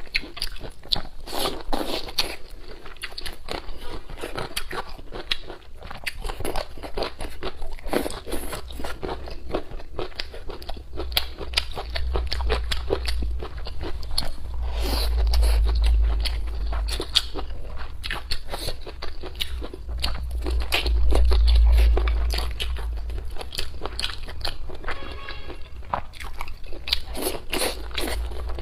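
Close-miked eating: biting and chewing with irregular crunches and wet mouth clicks. A low rumble runs underneath through the middle stretch.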